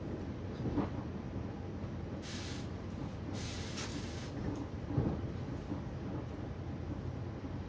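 Steady low rumble of a Railjet passenger train running at speed, heard from inside the carriage, with two brief hissing rushes about two and three and a half seconds in and a couple of dull knocks from the running gear.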